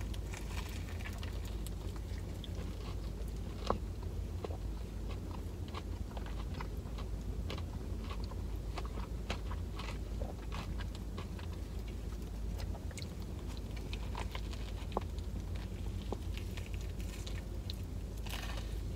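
Close-up eating sounds of a breaded fried chicken sandwich: bites and chewing with many small crunches and clicks, over a steady low hum. There is a fuller bite near the end.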